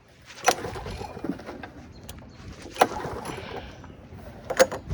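Handling noise: a few sharp knocks and clicks among rustling, about half a second in, near the middle and twice near the end.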